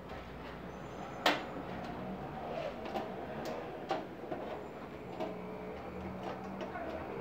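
Small metal burner parts being handled and set down on a stainless-steel gas hob: a few light clicks and taps, with one sharp click about a second in the loudest, over a faint steady low hum.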